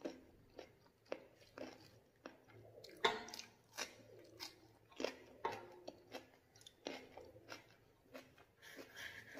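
A person chewing and eating close to the microphone, short wet mouth sounds about twice a second, while eating pakhala rice with chicken curry.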